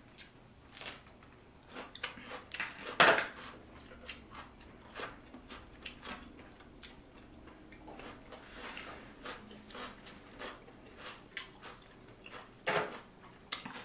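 Eating sounds from a seafood boil: hard shells clicking and clattering as clams and crab are picked through by hand. The clicks are scattered, the loudest about three seconds in and another near the end.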